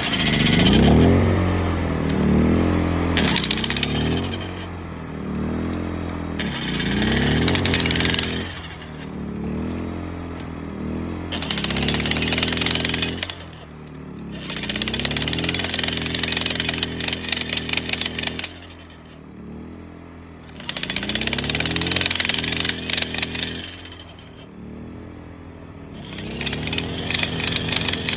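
Vevor electric demolition jackhammer, its brushed motor driving the chisel into a big rock, hammering in bursts of several seconds with short pauses between.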